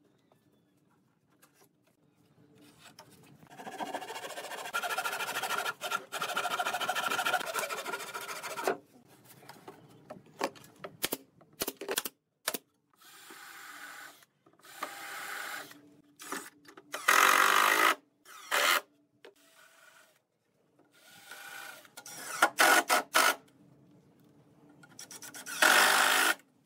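Hitachi cordless drill and a cordless impact driver run in repeated short bursts, drilling pilot holes and driving screws into wooden hull panels; the longest run lasts about five seconds, and the loudest burst comes near the end.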